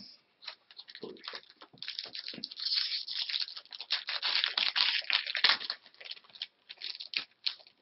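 A Magic: The Gathering booster pack's plastic foil wrapper being torn open and handled: a dense crinkling crackle for a few seconds in the middle, with scattered crinkles and clicks before and after.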